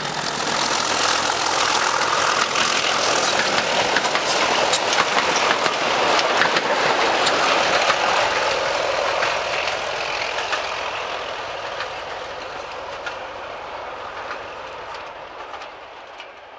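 A Class 31 diesel locomotive, an English Electric-engined machine, hauls a rake of coaches past with its engine running. The wheels click over the rail joints. The sound is loudest in the first half and fades as the train draws away.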